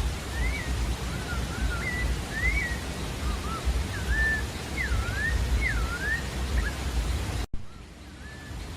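Sabiá-da-várzea singing a run of short whistled notes, each a quick rising or falling slur, over a steady hiss and low rumble. About seven and a half seconds in the sound cuts out for an instant and the background comes back quieter, with one more note near the end.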